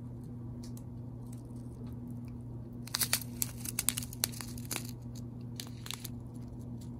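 Small plastic zip bags of square resin diamond-painting drills being handled, crinkling and crackling in a cluster of sharp rustles between about three and five seconds in. A steady low hum runs underneath.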